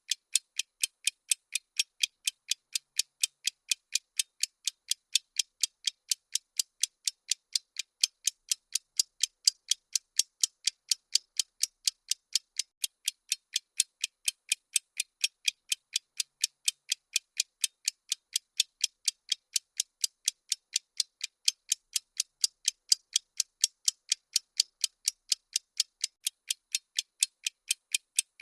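Bomb countdown timer's ticking sound effect: sharp, high clicks at an even, steady pace of several a second.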